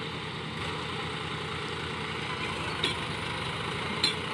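Heavy farm diesel engine running steadily, with two short sharp clicks about a second apart near the end.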